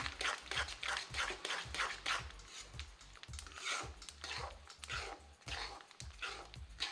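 Spatula scraping and stirring roasted sesame seeds through hot sugar syrup in a metal kadhai, in quick strokes about three a second.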